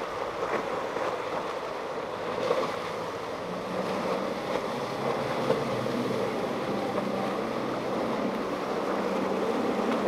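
Center console boat running at speed on outboard power, its hull throwing spray and wake, over waves and wind on the microphone. A steady engine drone comes in about three and a half seconds in.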